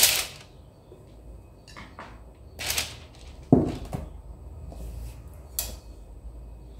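Kitchen utensils handled while thick cake batter is spooned with a silicone spatula from a ceramic mixing bowl into a lined square springform tin: a few short knocks and scrapes of spatula, bowls and tin, the loudest about three and a half seconds in.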